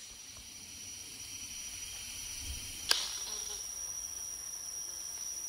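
Steady high-pitched drone of rainforest insects, one thin unbroken tone over a faint hiss, with a single sharp snap about three seconds in.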